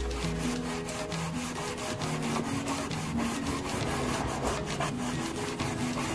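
Hand sanding of a wooden spice rack with a red sanding pad: rapid back-and-forth scrubbing strokes of abrasive on wood, scuffing the old finish so the paint will grip.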